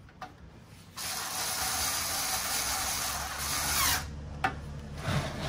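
Cordless electric screwdriver running for about three seconds as it drives a screw into a computer's metal chassis, with a falling whine just before it stops. A few light clicks follow.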